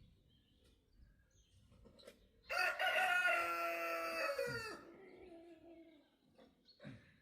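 Rooster crowing once: one long crow that starts about two and a half seconds in and drops in pitch at the end.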